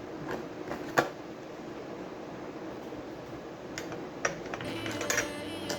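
A few sharp clicks and taps from small parts and tools being handled on a circuit board, over a steady faint hiss. Near the end, faint music starts.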